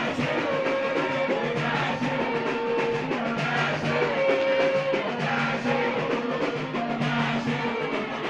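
Music: a voice singing held notes over drums and percussion.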